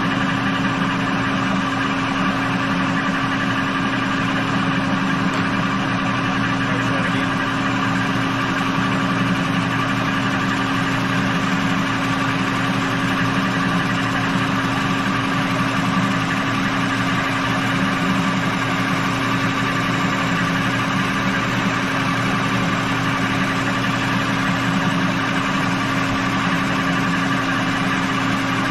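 Manual lathe running steadily with its tool in a facing cut on an aluminum transmission bell housing: an even machine hum with steady low tones.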